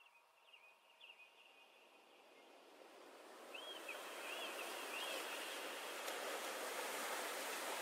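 Nature ambience fading in: a steady rush of flowing water getting louder over the first few seconds, with a few birds chirping near the start and again about halfway through.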